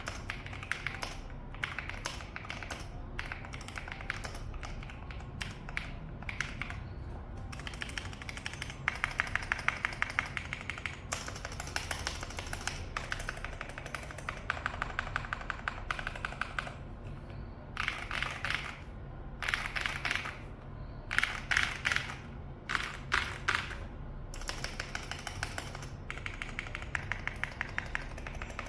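Typing on a mechanical keyboard fitted with PBT dye-sublimated keycaps: a steady run of fast keystroke clicks, with several louder, quicker flurries.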